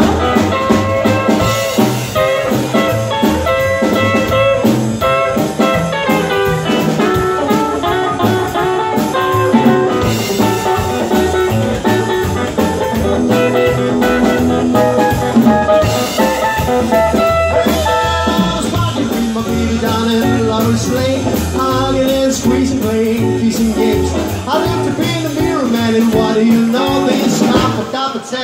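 Rockabilly band playing live: hollow-body electric guitar, upright double bass and drum kit in a long instrumental passage. The music stops at the very end.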